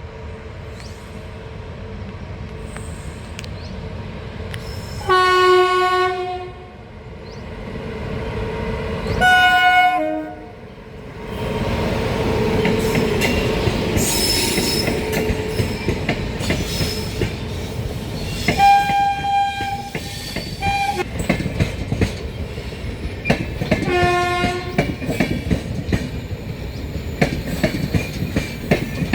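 Train sounding two short horn blasts about five and nine seconds in, then passing by: a rising rumble with wheels clattering over the rail joints. A longer horn of a different pitch sounds about two-thirds of the way through, and one more short blast follows a few seconds later.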